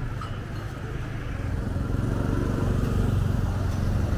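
Road traffic with motorbikes running close by, a low rumble that grows louder about two seconds in.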